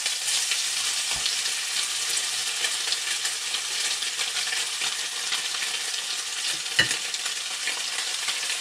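Fish fillets frying in butter in a hot skillet: a steady, slow sizzle with fine crackling, the pan at the right heat for blackening. One sharp click near the end.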